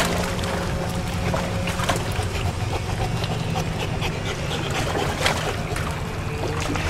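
Water sloshing and splashing around a swimming Doberman–Rottweiler mix dog, with wind rumbling on the microphone. A steady low hum runs underneath, clearest in the first couple of seconds.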